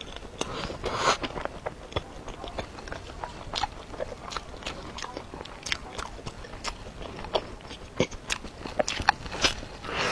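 Close-miked biting and chewing of a crisp-crusted mochi (glutinous rice) cake: irregular mouth clicks and crunches, with a louder bite about a second in.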